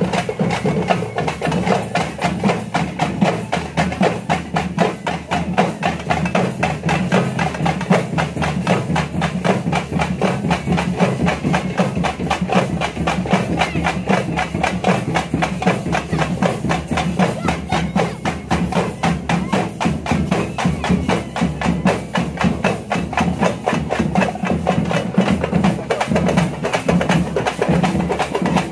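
Percussion music with drums beaten in a fast, even, unbroken beat.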